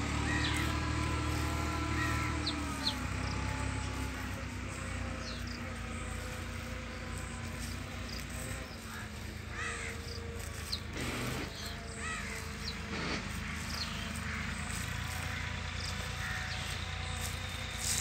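Birds chirping now and then, with crows cawing, over a steady hum that carries several long sustained tones.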